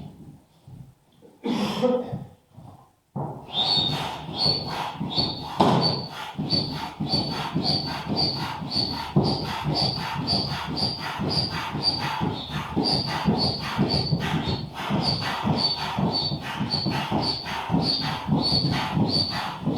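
Manual air pump inflating an inflatable boat, worked steadily at about two strokes a second, each stroke a rush of air with a short high squeak. The pumping starts about three seconds in, after a couple of brief handling noises.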